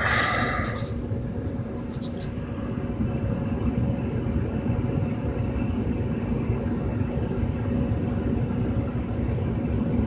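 Trane XE80 gas furnace running in heat, its blower pushing air through the supply plenum as a steady rush of air with a low hum. There is a brief rustle of handling right at the start.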